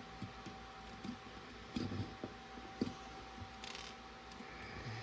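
Small plastic LEGO pieces being handled and pressed into place: a few light clicks and taps, with a brief rustle a little after the middle.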